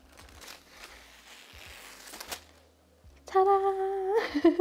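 A protective paper sheet rustling and crinkling as it is peeled off a laptop screen, followed by a woman's long, loud excited squeal that rises in pitch at the end.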